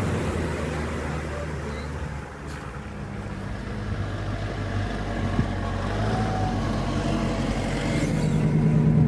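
Off-road vehicle engine running as it drives slowly over a rough dirt and mud track, with tyre and ground noise. It dips in loudness about two seconds in and picks up again near the end.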